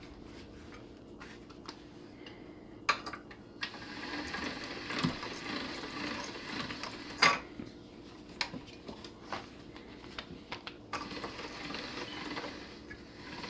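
Hand-cranked pasta machine turning, its steel rollers whirring as a sheet of pasta dough is cranked through to roll it thinner, with a few sharp clicks and knocks along the way.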